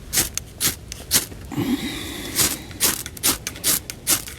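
Repeated quick scraping strikes of a fire starter, about two or three a second, throwing sparks at wet tinder that fails to catch because it is too wet.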